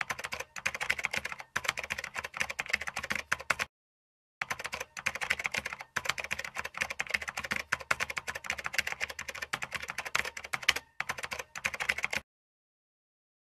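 Fast typing on a computer keyboard, a quick run of keystroke clicks. It pauses briefly about four seconds in, then carries on until about a second before the end.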